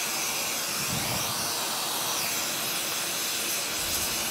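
Gas torch flame hissing steadily as it is played over a bearing housing and shaft, preheating them to a couple hundred degrees before molten babbitt is poured.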